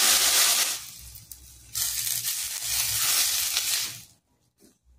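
Water poured into a hot stainless-steel pan of sautéed vegetables sizzles and hisses as it turns to steam. It comes in two loud spells, the second while the vegetables are stirred, and cuts off about four seconds in. The water goes in to steam-cook the broccoli stalks and carrot.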